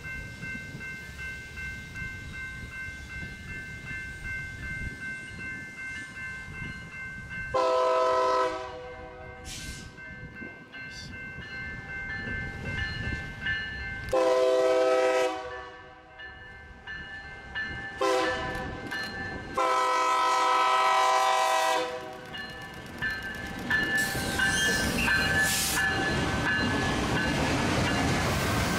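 SD40JR battery-electric locomotive sounding its horn in the long, long, short, long grade-crossing pattern as it approaches the crossing, over the steady ringing of the crossing bells. Near the end it passes close by with loud wheel-on-rail rattling and no diesel engine sound.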